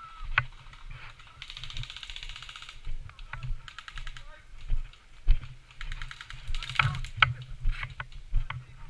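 Airsoft guns firing two bursts of fast, even clicks, each lasting about a second, the first near the start and the second about six seconds in. Between and around them there are scattered sharp knocks and low thuds.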